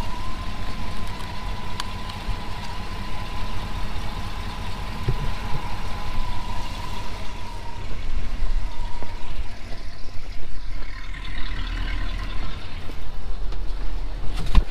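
Pickup truck engine running steadily, heard from inside the cab. A thin steady whine fades out about eight seconds in.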